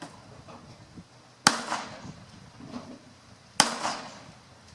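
Two pistol shots about two seconds apart, each a sharp crack followed by a short trailing echo.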